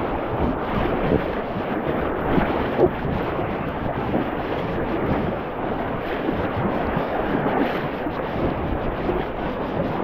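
Whitewater river rapids rushing in a steady noise, with a few brief louder spurts about one to three seconds in.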